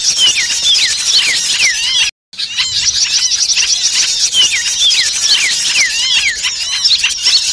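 Dense, agitated chorus of many small birds, a bird-lure recording made to draw small birds in. Rapid trills and repeated falling chirps overlap continuously, broken by a brief cut to silence about two seconds in.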